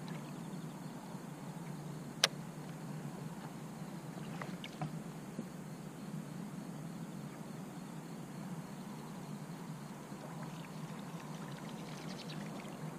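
Water lapping and rippling close to a camera at the water's surface, a steady low wash with a sharp knock about two seconds in and a few faint ticks a couple of seconds later.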